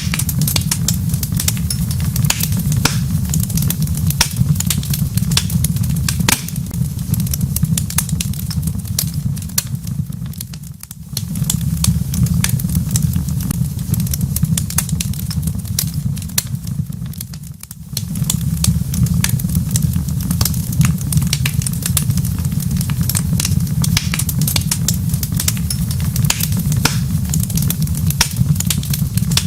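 Fireplace wood fire crackling with many sharp pops over a steady low rumble. The whole sound dips briefly twice, about eleven and eighteen seconds in.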